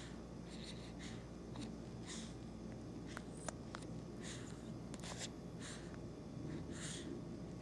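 Faint, snuffly breathing through the nose: short breathy hisses about once a second, with a few light clicks.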